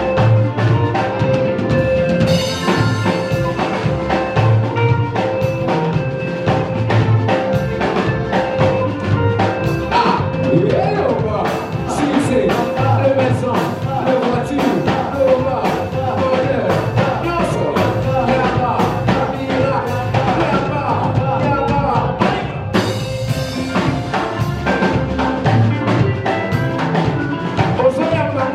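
Live praise-and-worship band music, with a drum kit keeping a steady beat under sustained instrument tones.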